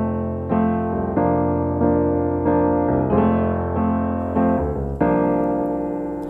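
Piano playing a song's introduction: a series of struck chords, each ringing and fading, with a short lull before a last chord that fades away.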